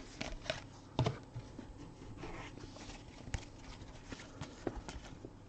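Trading cards being handled and sorted by hand: soft scattered taps and rustles, with a few sharper clicks about a second in and a little past three seconds.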